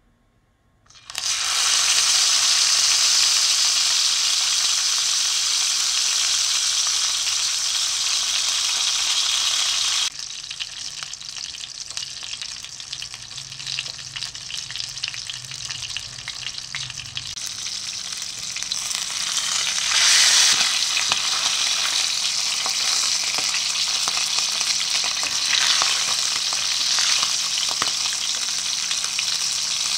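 Hot oil sizzling around a whole stuffed mullet frying in a pan: a loud sizzle starts suddenly about a second in as the fish goes into the oil. About ten seconds in it drops abruptly to a quieter crackling sizzle, which grows louder again later on.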